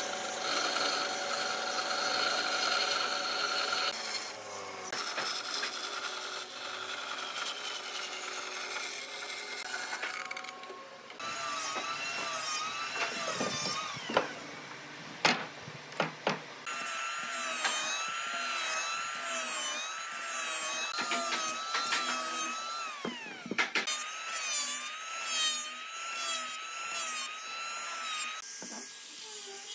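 Electric power tools working wood: a motor's whine whose pitch wobbles as the tool bites, heard in several short cuts, with a few sharp knocks around the middle.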